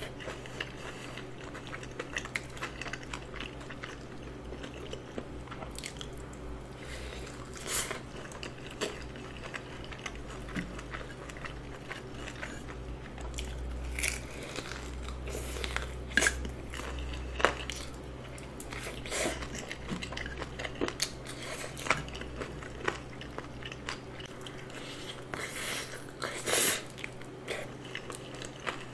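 Close-miked biting and chewing of a crispy seasoned fried chicken drumstick: sharp crunches of the fried coating, several of them louder, scattered among softer chewing.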